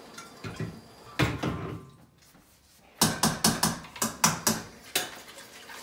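Cooking pot being moved off the stove: a couple of clunks in the first second or so, then, after a short pause, a rapid run of sharp metallic clicks and clatters, about four to five a second, lasting around two seconds.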